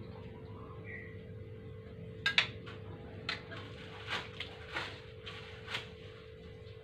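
A metal ladle knocking and clinking against a wok and a serving plate while food is dished out: a string of about nine sharp clinks starting about two seconds in. A steady low hum sits underneath.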